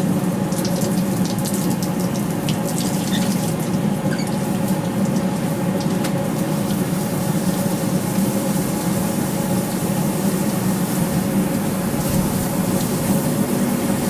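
Forge-shop equipment running with a steady rushing roar and an underlying hum, with a few faint ticks over it.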